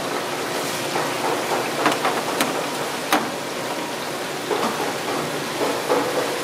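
Steady splashing and bubbling water from aerated tanks of live seafood, with a few sharp clicks and knocks about two and three seconds in.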